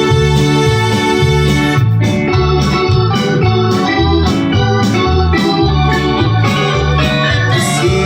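Band music led by an electronic organ, with a bass line repeating in a steady rhythm underneath.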